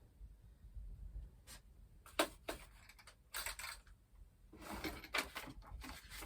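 Light clicks and brief rustling from hands handling small plastic parts, with a sharper click about two seconds in.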